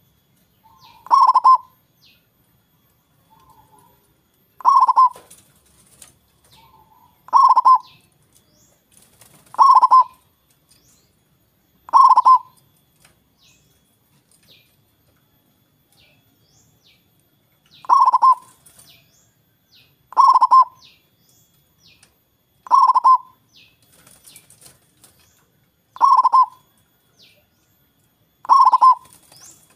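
Zebra dove (perkutut) cooing: about ten short, rolling coos, one every two to three seconds, with a pause of some five seconds midway.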